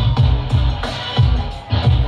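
Loud hip-hop dance music with a heavy bass-drum beat and no vocals.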